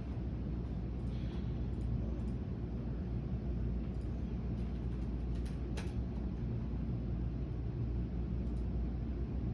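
Steady low background rumble with a few faint clicks, the clearest about six seconds in.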